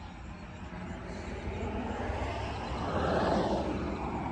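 Outdoor traffic noise: a vehicle passes by, swelling to its loudest about three seconds in and then fading, over a steady low rumble.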